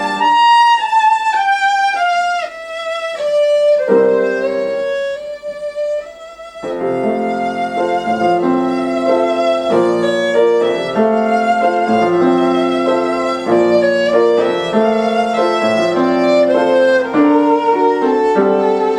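Violin playing a classical melody with vibrato, accompanied by piano. A descending violin phrase is heard over light accompaniment in the first few seconds, and the fuller piano texture returns after a brief dip about six seconds in.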